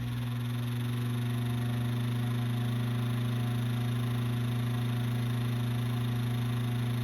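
Early-1950s Knapp-Monarch 10-inch single-speed table fan running, quiet apart from a steady, strong electrical buzz that comes from its loose switch vibrating through the front of the motor. The sound swells a little in the first second, then holds steady.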